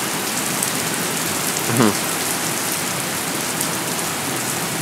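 Heavy thunderstorm rain pouring down and splashing on hard surfaces, a steady dense hiss.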